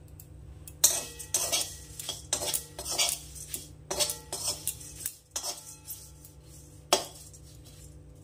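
Metal spatula stirring and scraping flattened rice (chira) in a dry metal wok, a run of rasping strokes about two a second that stops about halfway through, followed by a single sharp clank of metal on the wok.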